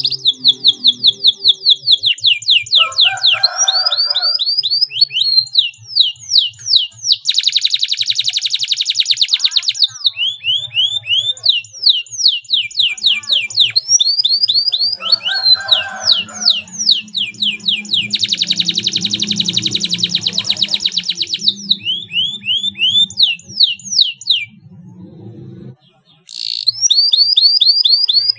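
Domestic canary singing a long song of tight rolls: runs of rapidly repeated falling whistled notes, twice breaking into very fast buzzing rolls, with a brief pause near the end before the song picks up again.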